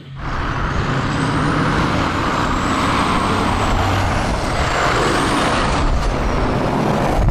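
Heavy Scania tanker lorries driving past on a road: diesel engines running, with a faint high whine that rises and falls. The sound cuts off suddenly at the end.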